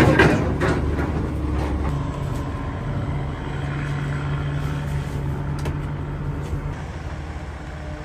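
Heavy diesel earthmoving machinery running steadily, with a few sharp knocks near the start; about two seconds in, the engine hum steps up in pitch and holds, then eases off toward the end.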